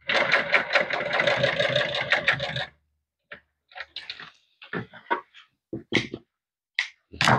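Industrial sewing machine stitching vinyl upholstery: a fast, even run of needle strokes over the motor's hum for about two and a half seconds, then it stops. A few sharp clicks and snips follow as shears cut the thread near the end.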